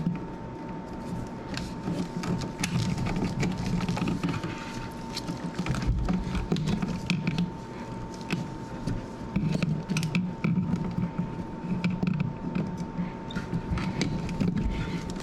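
Irregular clicks, knocks and scraping from handling an electrical outlet and its wires as they are pushed into the wall box, over a steady faint high-pitched tone.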